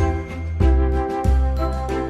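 Background music, with a low bass note that changes about every 0.6 s under sustained higher notes.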